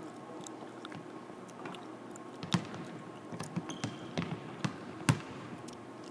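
Basketball bouncing on a hardwood court: several irregular sharp thumps, the loudest about two and a half seconds in and again near the end, with a brief high squeak just before the middle.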